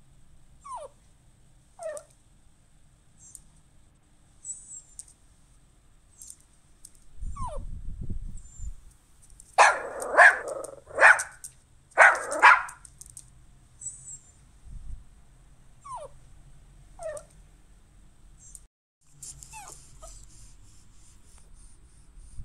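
Recorded dog sounds of a Google 3D augmented-reality Pomeranian: short, falling whimpers now and then, and a quick run of about five loud barks around the middle.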